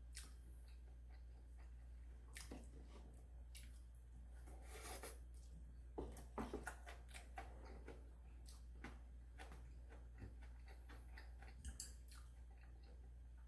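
Quiet eating sounds: scattered light clicks and taps of utensils against food containers, with soft chewing, busiest near the middle. A low steady hum sits underneath.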